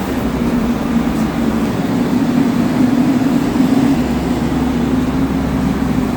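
Steady drone of paint-shop machinery running: a low hum under an even rush of air, swelling a little in the middle.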